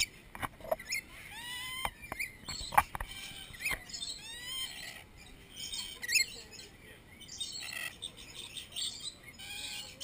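Lorikeets chattering close up while they feed from a nectar cup: many short calls that bend up and down in pitch. Several sharp clicks come through, the loudest about three seconds in.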